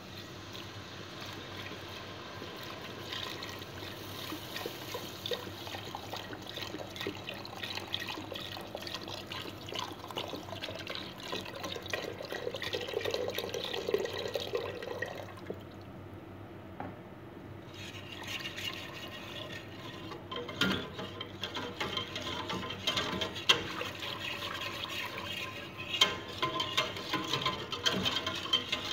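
Milk poured into a steel saucepan of roux while a wire whisk stirs it, the whisk's wires ticking against the pan. In the second half the stirring gets busier, with several louder clinks of the whisk on the pan.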